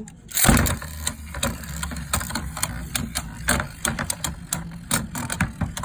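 Beyblade spinning tops launched into a plastic stadium with a sharp hit about half a second in, then whirring and clashing, with irregular clicks as they knock against each other and the walls.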